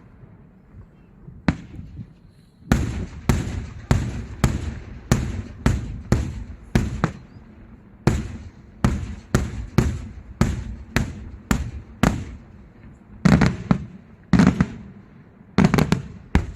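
Daytime fireworks bursting in a rapid series of sharp bangs, about two a second, followed near the end by a few louder, deeper booms.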